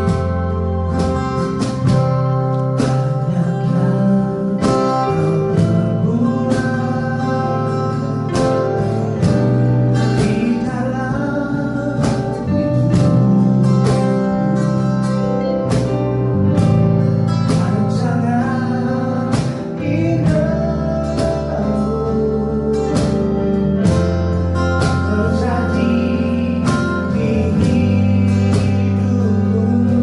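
Music: a song led by strummed guitar chords with singing over it, keeping a steady beat.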